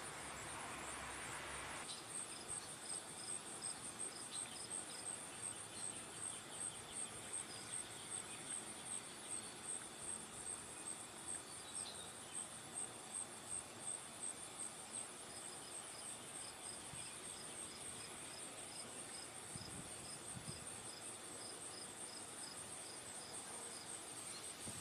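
Steady, high, pulsing insect chorus, with a slower run of chirps, about two to three a second, that comes and goes.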